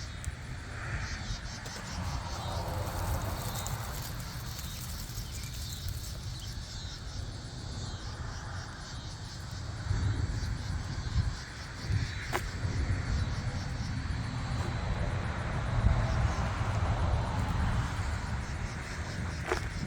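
Insects chirping in a steady, fast pulsing rhythm over a low rumble that swells and fades, with two sharp knocks, one midway and one near the end.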